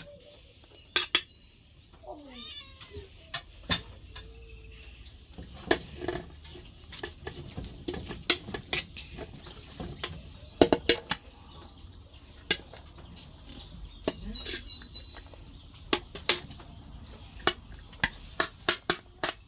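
Cutlery clinking and tapping against a dinner plate during eating: sharp separate clinks at irregular intervals, about twenty in all, with quiet gaps between.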